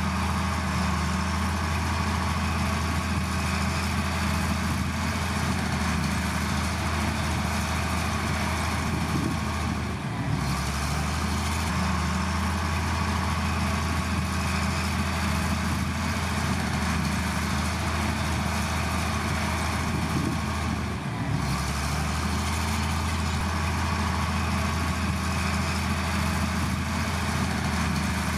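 Heavy diesel engine of earthmoving machinery running steadily with a deep drone. The drone dips briefly twice, about a third of the way in and again about two thirds in.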